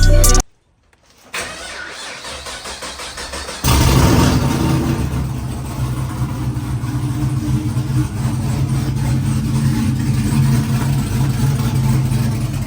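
A car engine being cranked over by the starter for a couple of seconds, then catching about three and a half seconds in and running at a steady idle.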